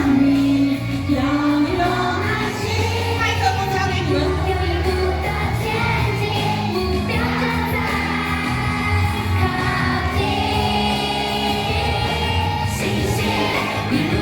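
A song from a stage musical: voices singing together over a pop backing track.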